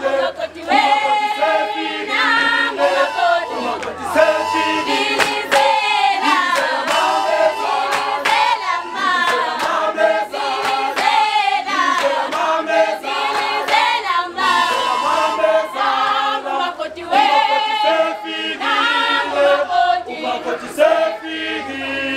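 Group of women singing a traditional Zulu song in chorus, unaccompanied, with hand claps.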